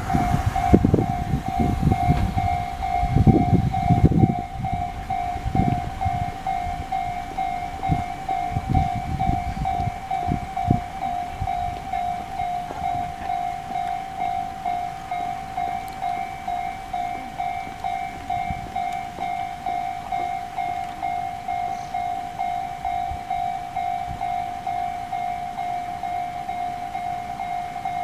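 Japanese electronic level-crossing bells ding in a steady, rhythmic alarm, signalling the barriers are down. For roughly the first ten seconds a train passes with a heavy rumble and repeated wheel thumps, then fades, leaving the bells alone.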